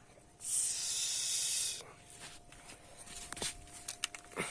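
A loud, steady spraying hiss lasting about a second and a half, followed by several light, sharp clicks and knocks.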